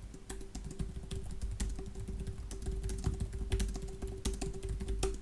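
Typing on a computer keyboard: a quick, irregular run of keystrokes without a pause.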